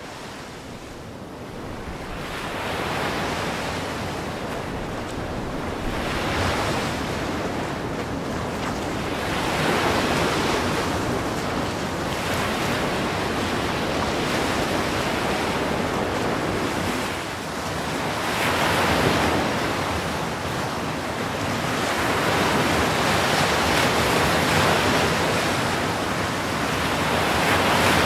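Ocean surf breaking on the shore: a continuous rush of crashing waves and white water that swells and ebbs every few seconds. It fades in over the first couple of seconds.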